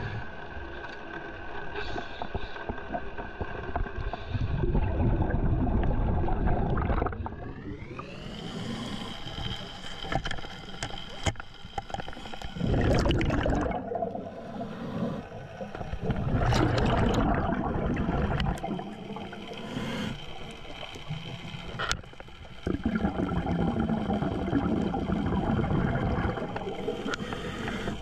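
Underwater sound of a scuba diver breathing: a gush of exhaled regulator bubbles about every five seconds. Under it runs the steady whine of a boat's motor carried through the water, which rises sharply in pitch about eight seconds in.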